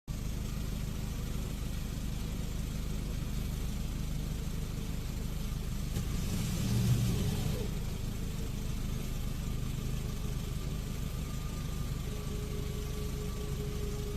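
A motor vehicle running steadily with an engine hum and road noise, swelling briefly to a louder, hissier peak about halfway through.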